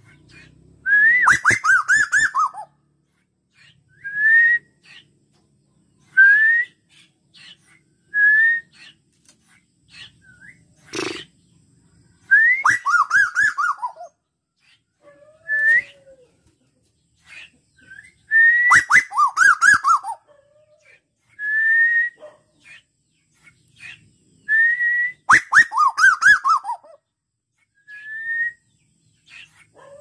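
Male Asian koel calling: short single rising whistles every couple of seconds, and four times a loud quick series of notes that fall in pitch. Sharp crackling clicks come with several of the falling series.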